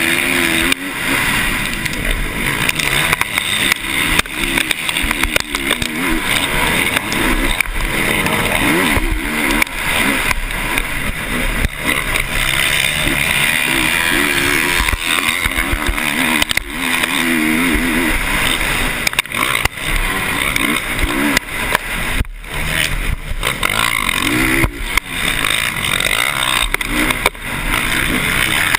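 Motocross dirt bike engine heard from on board, revving up and down through the gears, with the throttle chopped briefly every few seconds, over a steady rush of wind and track noise.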